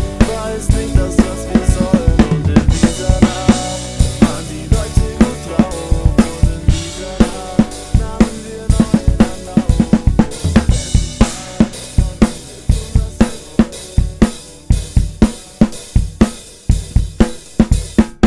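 Rock drum kit played hard along with a band recording: fast kick and snare hits with crashing cymbals and hi-hat, over steady bass and guitar.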